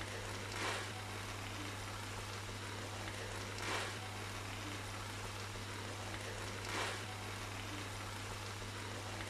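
Steady hiss of a potato, chicken and cabbage filling frying in a wok, over a low steady hum, with the hiss swelling briefly about every three seconds.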